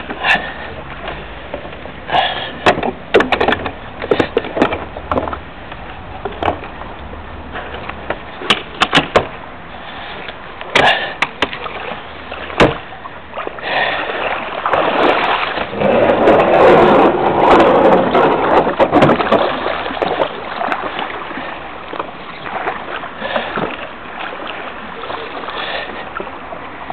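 Water splashing and lapping against a stand-up jet ski's hull, with scattered knocks and bumps against it. The splashing is loudest a little past the middle.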